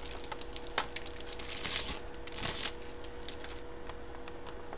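Hard plastic graded comic slabs being handled and shuffled: scattered light clicks and rustles of plastic, over a faint steady hum.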